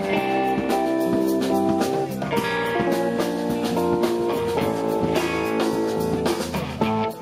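Live funk band playing: electric bass and electric guitar over a drum kit keeping a steady beat.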